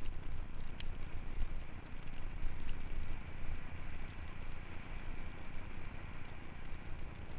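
Mountain bike riding on a dirt trail: wind buffeting the microphone in a steady low rumble over the rolling noise of tyres on dirt, with a couple of small clicks about one and three seconds in.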